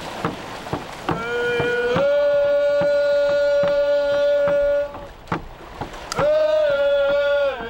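Voices from the canoe singing a chant in long held notes: one rises in about a second in and is held for about three seconds, and a second starts about six seconds in. A steady beat of about two or three strokes a second, drum or paddle, runs under the first held note.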